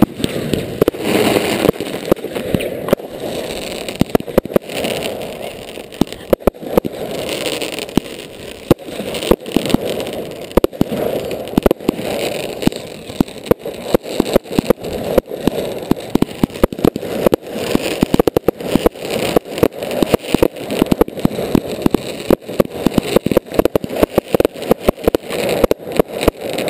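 A fireworks display heard from close to the firing point: a dense, unbroken run of sharp bangs and pops, several a second, over a steady rushing hiss of launches and bursts.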